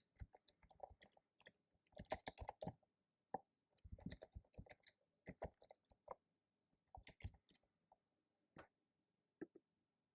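Typing on a computer keyboard: faint key clicks in short quick runs with brief pauses between them.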